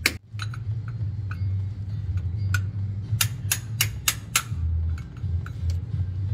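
Sharp, irregular metal clicks and taps from hand tools working at the transmission harness connector and its galled bolt sleeve, including a quick run of about three clicks a second past the middle, over a steady low hum.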